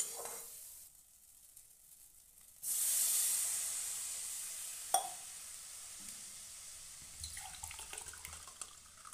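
Water poured into a pan of hot fried curry masala, hissing loudly as it hits and fading slowly, about two and a half seconds in. A sharp click follows a couple of seconds later, and near the end a plastic spatula stirs and scrapes the gravy in the aluminium pan.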